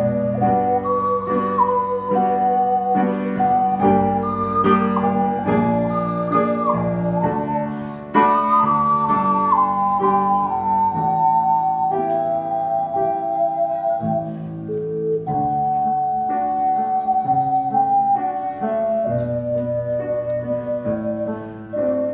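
Two ocarinas playing a slow melody in two-part harmony over piano chords, with a short break between phrases about eight seconds in.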